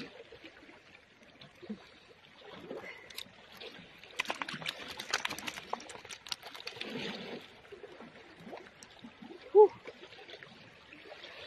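Clicking, crackling handling noise as freshly caught mackerel are handled on wet rock and a hook is worked out of a fish's mouth, with a faint trickle of water behind it. A brief loud pitched yelp cuts in about two-thirds of the way through.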